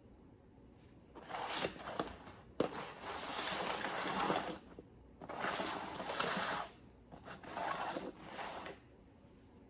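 A dog nosing and pushing cups on the floor while hunting for a hidden treat. It makes rough scraping and rustling noises in four spells of one to two seconds each, with a few sharp clicks.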